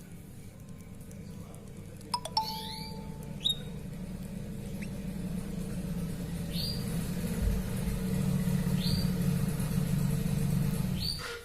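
Canaries giving a few short, high chirps that sweep downward, with a few sharp clicks early on, over a steady low hum that grows louder and then cuts off suddenly near the end.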